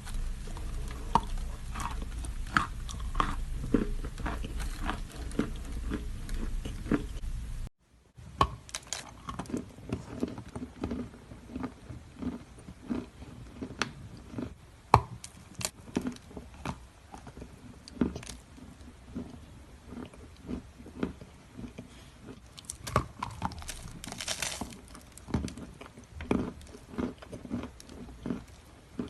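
A person biting and chewing edible chalk pieces, with many irregular crisp crunches close to the microphone. A low hum sits under the first part and stops at a brief break about eight seconds in.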